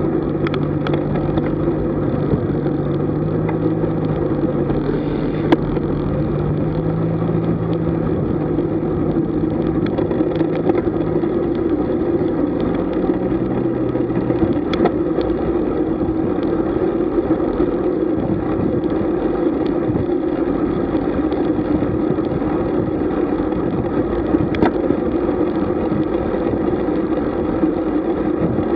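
Steady rush of wind and tyre noise picked up by a camera on a road bike, with a few sharp clicks. A low motor-vehicle engine hum runs underneath and drops away about halfway through.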